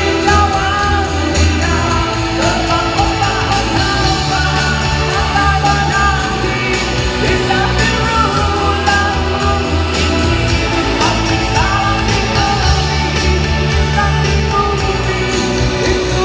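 Live rock band playing amplified over a PA, a voice singing over electric guitar, bass and drums.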